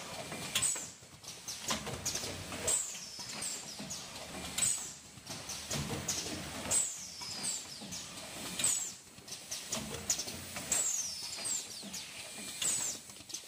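Turntable-type detergent packaging machine running through its cycle: a knock from its pneumatic stations about every one to two seconds, each with a short high squeak that falls in pitch, over hissing air.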